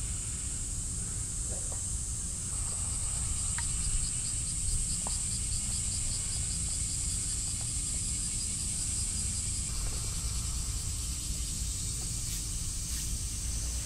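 Cicadas singing in a steady, high-pitched summer chorus, with a second, pulsing insect call joining for several seconds in the middle. A steady low rumble runs underneath.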